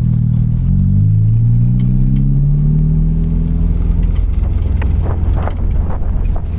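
Straight-piped Mk1 Audi TT 180's 1.8-litre turbocharged four-cylinder engine, its pitch rising steadily for about three seconds, then running rougher with a few sharp crackles near the end.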